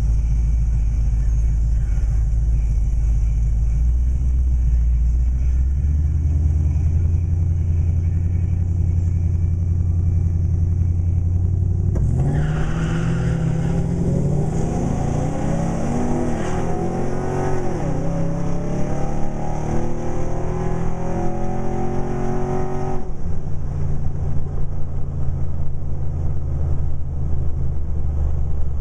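Pickup truck engines rumbling low and steady, then about twelve seconds in one launches hard at full throttle, its pitch climbing again and again through the gear changes for about ten seconds before it cuts off abruptly and the low rumble returns.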